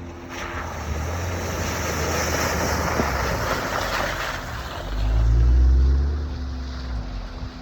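Jeep driving with a rushing noise over its engine rumble for the first few seconds. About five seconds in, the low engine rumble swells loudly for a second or so, then drops back.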